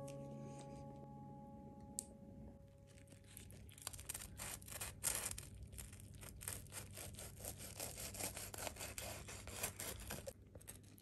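Knife sawing through crisp toasted bread: quick, repeated rasping, crunching strokes that start about three seconds in and stop shortly before the end.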